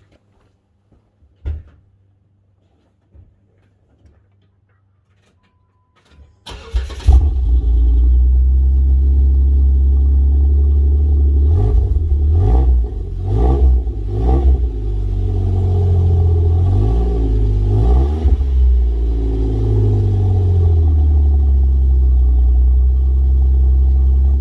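Vehicle engine breathing through a newly installed exhaust line and muffler: a few clicks, then it cranks and catches about six seconds in and runs loud. It is blipped several times around the middle, the pitch rising and falling with each rev.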